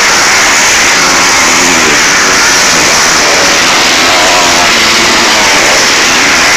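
Motocross bikes racing past, their engines revving up and falling off again and again, loud on the microphone.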